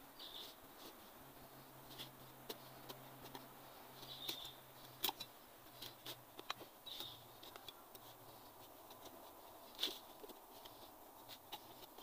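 Small hand digging tool scraping and chipping at dry soil, faint irregular scrapes and clicks as the hole is dug out.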